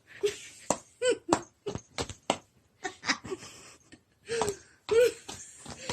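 A person laughing hard in a string of short, breathy bursts.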